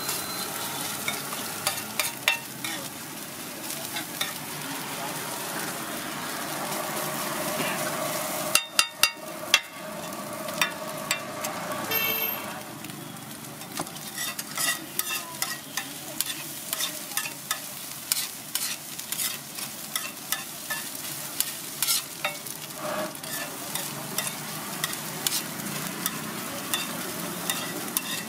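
Steel spatulas scraping, chopping and tapping on a large flat iron griddle while a scrambled egg and onion mixture sizzles on it. There is a quick run of loud clangs about nine seconds in.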